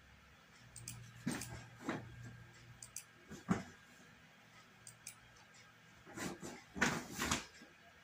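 Short sharp clicks and knocks at irregular intervals: a few in the first half, then three close together near the end.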